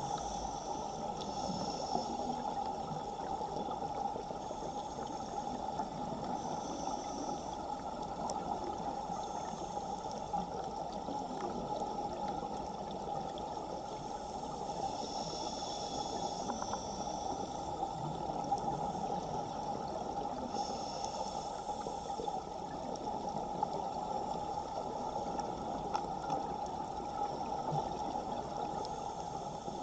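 Underwater ambience in a strong current: a steady rush of water noise, with a faint high hiss that comes and goes every few seconds.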